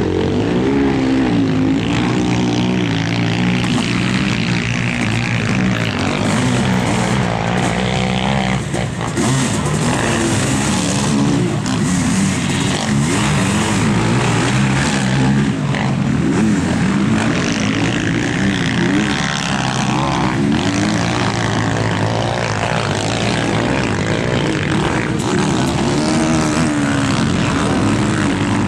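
Sidecar motocross outfits' engines revving hard and dropping back as they ride the track, the pitch rising and falling again and again.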